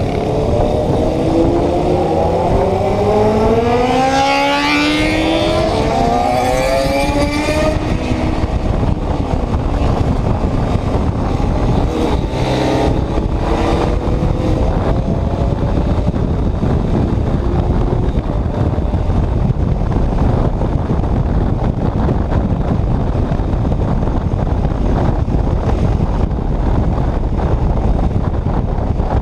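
Yamaha Ténéré 250 single-cylinder motorcycle engine accelerating, its pitch climbing for the first several seconds, then giving way to steady wind noise on the microphone at riding speed.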